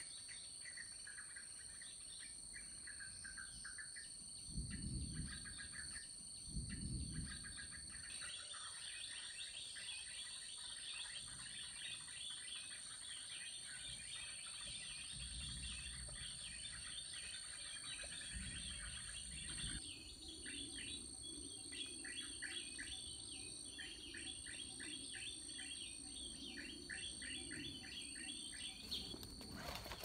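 Small forest birds chirping in quick runs of short repeated notes over a steady high-pitched insect drone. Two low rumbles come about five and seven seconds in.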